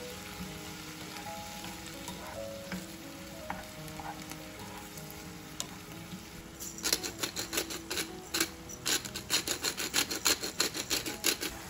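Zucchini and onion sizzling in a frying pan while a silicone spoon stirs them. About two-thirds of the way in, a rapid run of sharp clicks starts: a pepper mill grinding fresh pepper over the pan.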